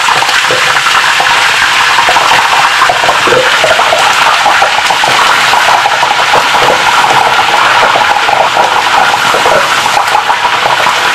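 Raw duck pieces sizzling in hot oil in a deep fryer basket, a loud steady sizzle with scattered crackles. The duck is being par-fried only until the meat firms up, not cooked through.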